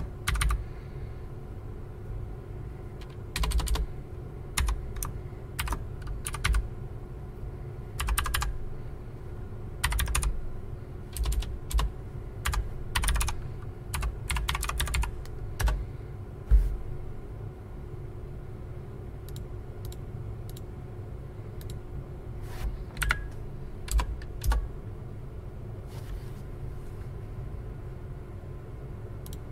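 Typing on a computer keyboard: quick runs of key presses through the first half, then fewer, scattered keystrokes. A steady low hum runs underneath.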